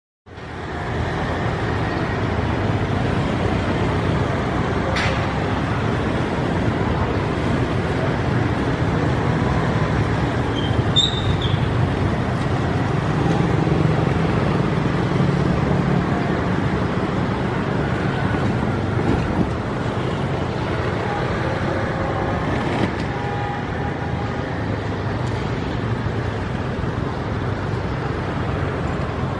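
Steady road traffic noise, vehicle engines running and passing, with a short high chirp about a third of the way in.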